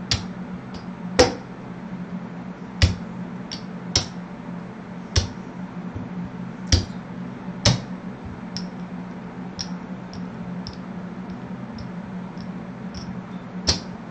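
Casino chips clicking as they are set down one at a time on the table and on each other while the chips are counted out into rows. The clicks come singly, the sharpest about once a second in the first half and lighter ones after, with one louder click near the end, over a steady low hum.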